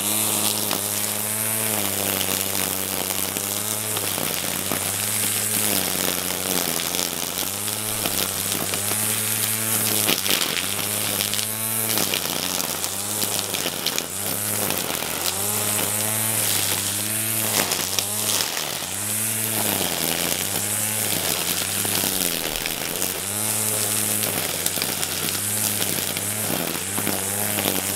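Wild Badger 20-volt brushless cordless string trimmer running while cutting taller weeds. Its motor pitch dips and recovers again and again, about once a second, as the line bogs in the growth, a motor the owner finds underpowered and prone to stalling.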